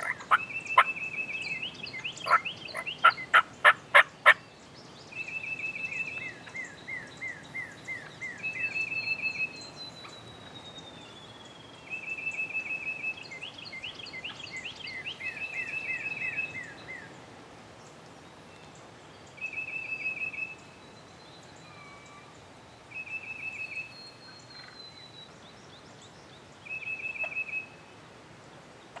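A loud series of turkey calls over the first four seconds, then songbirds singing short trills that repeat every few seconds, with one long falling whistle.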